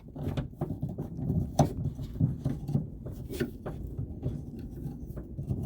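A screwdriver prying at a car's outer door handle: a string of irregular clicks and light knocks as the handle parts are worked loose.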